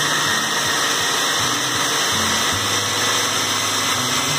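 Food processor running steadily, chopping a load of chillies, shallots, tomato and garlic into a coarse paste.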